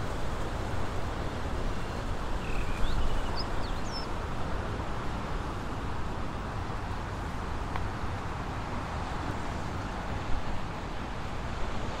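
Steady beach ambience: wind rumbling on the microphone over the wash of surf. A few short, high bird chirps come about three seconds in.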